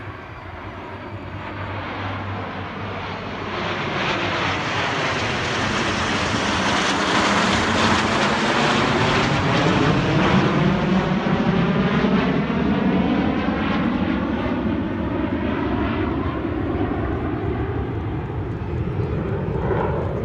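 A formation of nine Snowbirds CT-114 Tutor jet trainers flying over low, their turbojet engines building to a loud roar about halfway through as they pass overhead, then slowly fading as they move away, with a sweeping whoosh through the sound as they go by.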